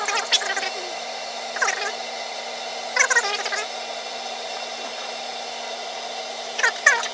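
About 7.5 gallons of water heated by a 5500 W Camco electric element in a stainless keg at about 190°F, just short of a boil: a steady rushing noise from the element's bubbling. Short louder gurgles come about a second and a half in, at three seconds and near the end, over a faint steady hum.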